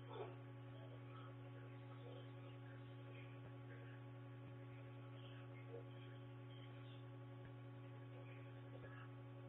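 Near silence over a steady electrical hum, the recording device's own noise, with one brief faint sound just after the start.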